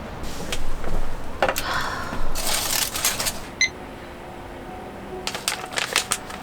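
Small objects being handled: a series of clicks and knocks with rustling, a brief high clink about three and a half seconds in, and a quick run of sharp clicks near the end.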